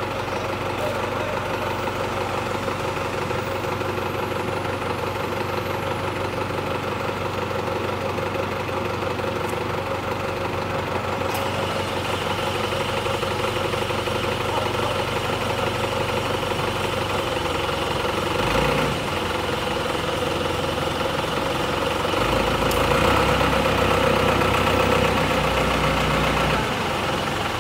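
Forklift engine running steadily while the forklift holds a load on its forks, growing louder and deeper for a few seconds near the end as it works.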